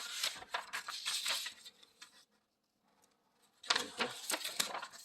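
Rustling and clicking handling noises in two spells, with a pause of about a second and a half in between.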